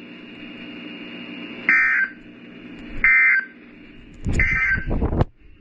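Three short bursts of Emergency Alert System digital data tones, about 1.3 seconds apart: the end-of-message code that closes the warning. They play over a steady radio-like hiss, and the third burst is joined by a run of low thumps.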